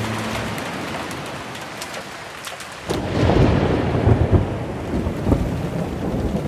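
Rain falling with a steady hiss, then about three seconds in a sudden loud rumble of thunder that keeps rolling unevenly.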